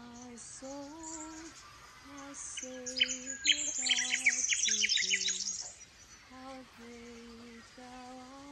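Rapid high bird chirping in a dense run from about three to nearly six seconds in, the loudest sound, over a slow melody of long held notes.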